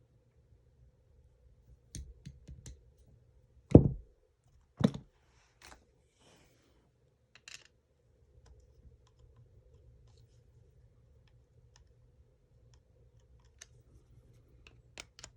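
Scattered clicks and knocks of hard plastic and metal airsoft rifle parts being handled during disassembly to remove the motor. There are two louder knocks about four and five seconds in, then faint light scraping and ticking.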